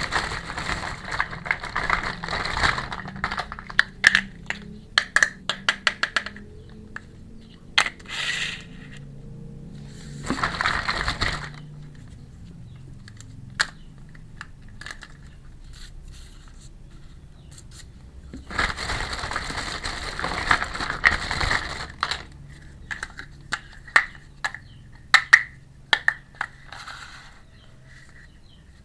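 Unboxing a miniature toy kitchen set: packaging crinkling and rustling in bursts of a second or two, with many sharp clicks and taps of small pieces being handled in between.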